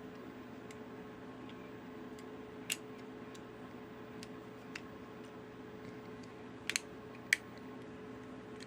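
Scattered small clicks and taps of tiny diecast car parts being handled as a wheel and axle are fitted into a 1:64 scale model body: a sharp click about three seconds in, a quick double click and a louder one near the end. A steady low electrical hum runs underneath.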